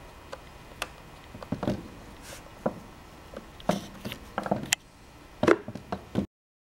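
Scattered light clicks and knocks as a long Phillips screwdriver works out the butt pad screws of an MKA 1919 shotgun's buttstock and the stock is handled. The sound cuts off abruptly near the end.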